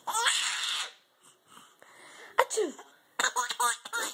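A woman sneezing loudly: a breathy, hissy burst in the first second, then a sharp 'achoo' about two and a half seconds in whose pitch falls away.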